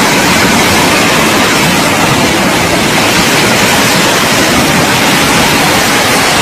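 Muddy flash-flood torrent rushing past, a loud, steady noise of churning water.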